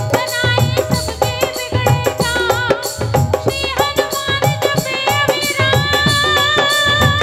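Live Indian devotional folk song: a woman sings over melodic instrumental accompaniment and a steady drum beat, holding one long note through the second half.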